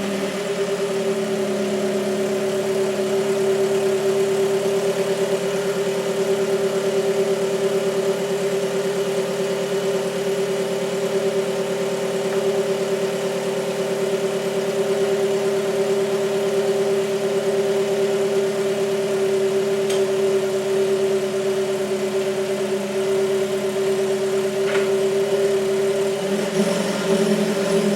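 Lotus Elise Sport 220's supercharged 1.8-litre four-cylinder engine idling steadily just after being started, running on freshly changed oil.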